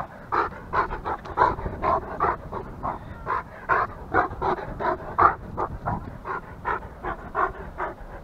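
A dog panting rapidly and evenly, about three breaths a second.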